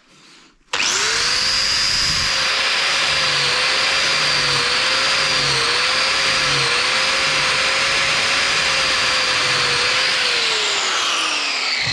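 Angle grinder with a flap disc starting up suddenly about a second in and running steadily, its pitch dipping briefly several times, then winding down near the end. It is grinding a little material off a countersunk screw so the screw will fit.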